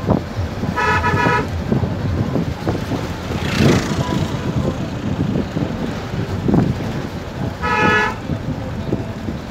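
A vehicle horn tooting twice, a short blast about a second in and another near the end, over the steady engine, tyre and wind noise of the moving vehicle.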